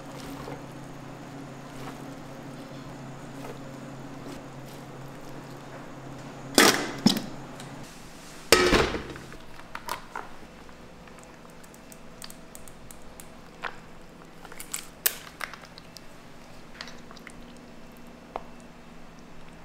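Kitchen food-prep handling sounds. A low steady hum runs for the first eight seconds or so, with a loud clatter about seven seconds in and a sharp knock about two seconds later. After that come scattered small clicks and rustles as a plastic sauce pouch is uncapped and squeezed.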